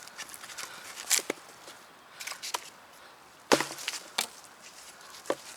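Hardened steel axe striking dry deadwood, six or seven sharp chops with splintering cracks. The heaviest blow lands about three and a half seconds in.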